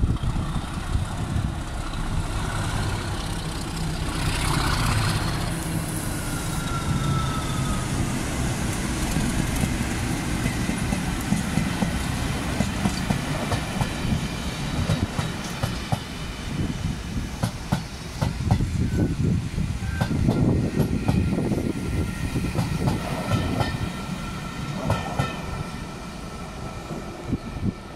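Diesel-hauled train passing at speed. A locomotive engine's low drone, with a short falling whine, gives way to rapid clickety-clack of wheels over rail joints and points as the locomotives and vans go by, easing off near the end.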